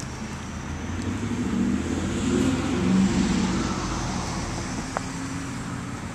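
A passing road vehicle's rumble that swells to its loudest about three seconds in, then fades. A single short click comes about five seconds in.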